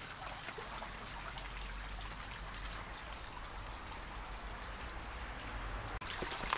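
Steady trickling, splashing water, with a brief sharp click near the end.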